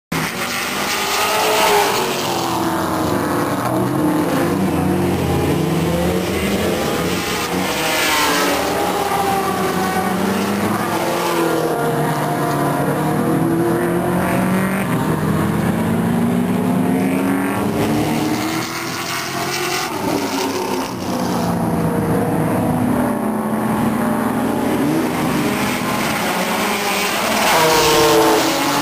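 Several race cars' engines running on a circuit, revving up and down through the gears in overlapping, rising and falling pitches. They swell louder as cars come closer, about two seconds in, around eight seconds and near the end.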